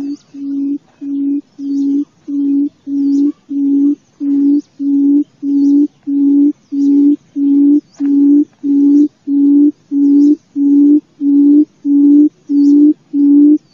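Barred buttonquail's low booming call: a long series of evenly spaced hoots on one low pitch, a little under two a second, growing slowly louder.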